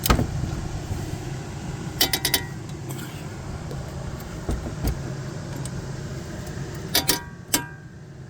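Metal clinks and clatter of hand tools on brake caliper bracket bolts, in a few short bunches of sharp clicks, over a steady low hum.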